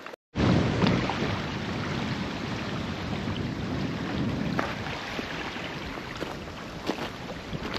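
Wind blowing across the microphone, a steady rushing and buffeting that starts abruptly about a third of a second in, after a brief gap of silence.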